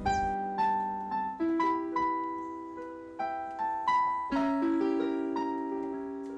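Background piano music: a slow melody of single notes, each struck and left to ring and fade.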